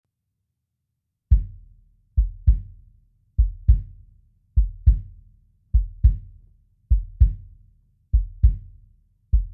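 Bass drum opening a song with paired deep thumps, about one pair every 1.2 seconds, starting a little over a second in.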